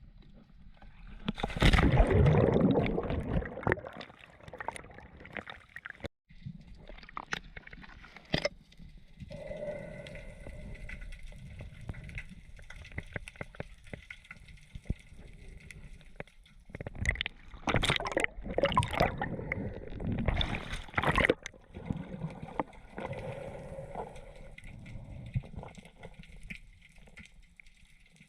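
Water sloshing and gurgling around a diver's action camera at the surface, with loud rushes of splashing about two seconds in and again in a cluster past the middle. A faint steady whine sits underneath from about a third of the way in.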